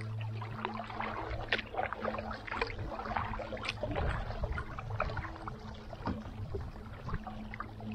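Kayak paddling: irregular splashes and drips of water from the paddle strokes, over a steady low hum.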